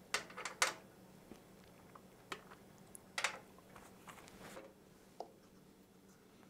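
Scattered light clicks and knocks of small objects being handled on a workbench, about half a dozen, the loudest a little past three seconds in, over a faint steady hum.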